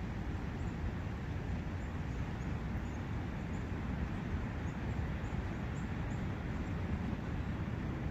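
Steady rush of a forest brook, with faint, short high bird chirps scattered over it.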